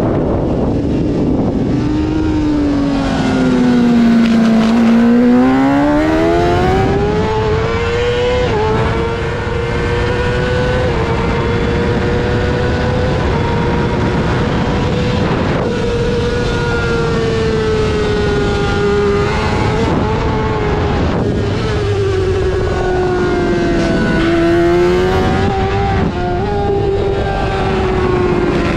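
Honda CBR600 inline-four race engine running hard at high revs. Its pitch falls for a few seconds early on as the bike slows, climbs back, then holds high and nearly level, with shorter dips and recoveries later.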